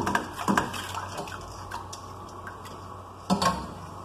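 The last precooked hominy kernels drop from a metal colander into a stainless stockpot of water, with water dripping. The colander clinks and knocks against the pot several times, the loudest knock coming a little past three seconds in.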